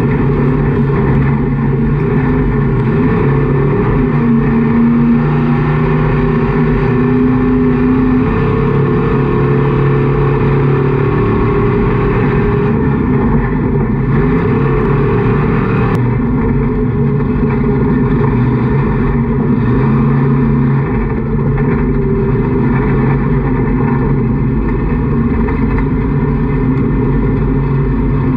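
Super Stock off-road race truck's engine running under hard throttle, heard from inside the truck's cab, its pitch rising and falling as the driver accelerates and lifts.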